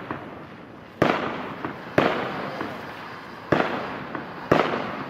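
Fireworks going off: four sharp bangs, roughly a second apart with a longer gap in the middle, each trailing away over most of a second.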